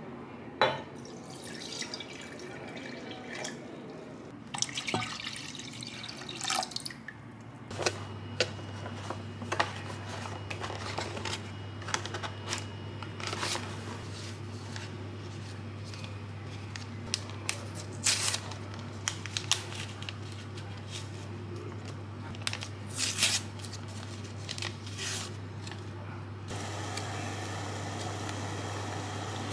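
Close kitchen handling sounds: liquid splashing and dripping as a hand works kombucha SCOBYs in a glass jar, then scattered clicks and light knocks of things handled on a counter, over a steady low hum from about eight seconds in.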